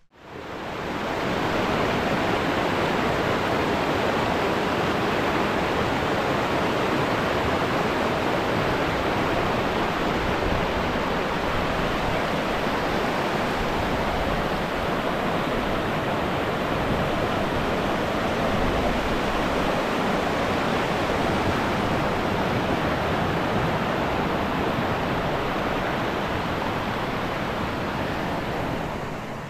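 Rocky river rushing over boulders in white water: a steady, full rush of water that fades in over the first second or so and fades out near the end.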